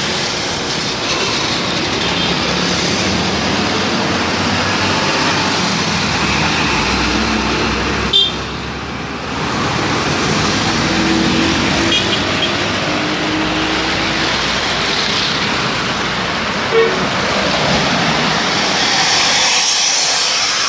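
Busy road traffic passing close by: lorries, motorbikes and cars running past with engine and tyre noise. A single sharp knock about eight seconds in, and a short beep a few seconds before the end.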